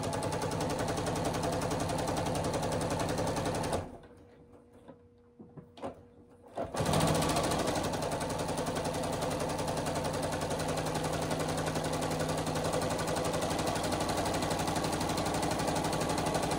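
Domestic electric sewing machine stitching a fabric mask tie: it runs for about four seconds, stops for about three, then runs again for about ten seconds with rapid needle strokes.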